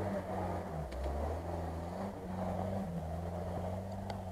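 Off-road 4x4's engine running under load as it drives slowly past on a rough forest track, its note falling and rising with the throttle. There are two faint clicks, about a second in and near the end.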